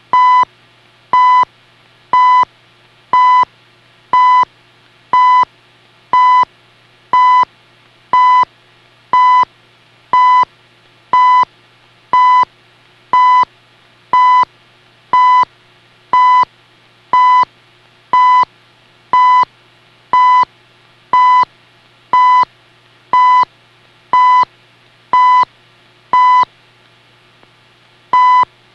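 CHU shortwave time signal received on a portable shortwave radio: a short, steady beep near 1 kHz once every second, over a faint low hum. Near the end one second's beep is skipped, the usual CHU gap at second 29.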